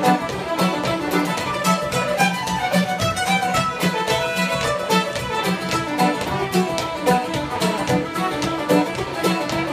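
Fiddle playing a lively tune over a quick, steady rhythmic accompaniment.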